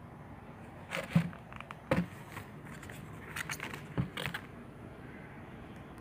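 Handling noise from a shoebox and its tissue-paper wrapping: a few short knocks and crinkly rustles in clusters about a second apart.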